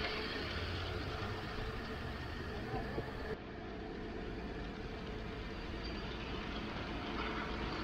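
Steady low rumble with outdoor hiss, like a running engine or machinery. About three and a half seconds in, the sound changes abruptly and the hiss drops away.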